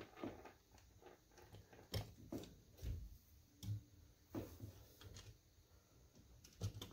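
Faint, scattered soft thumps and small clicks of handling, roughly one every half second to a second, as die-cast model cranes are touched and shifted on a tabletop.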